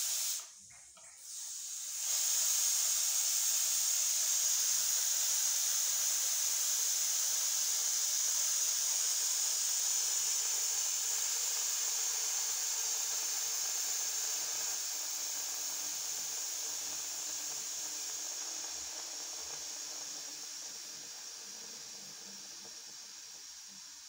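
Steam hissing from a traditional stovetop pressure cooker under pressure. A short hiss breaks off right at the start, then a steady high hiss builds from about two seconds in and slowly fades toward the end.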